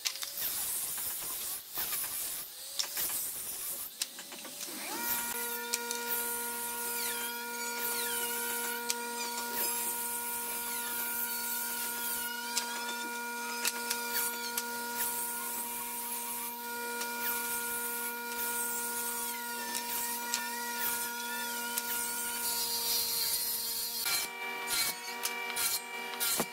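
Handheld angle grinder with a sanding disc starting up about five seconds in and then running with a steady whine, the disc rubbing over wooden boards. Near the end a different workshop machine's hum takes over.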